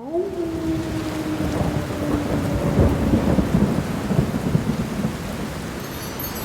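Rain and thunder ambience: steady rain with low rolling thunder, the thunder loudest about three seconds in. A low held tone sounds under it at first, sinking slightly and fading out about halfway through.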